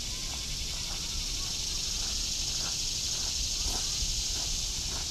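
A steady, high-pitched drone of insects in the surrounding woods, unchanging in level, with a faint low rumble beneath it.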